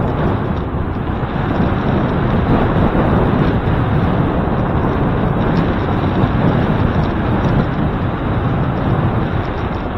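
Steady wind noise buffeting the microphone of a camera mounted on a moving bicycle: an even, unbroken rumble with no distinct events.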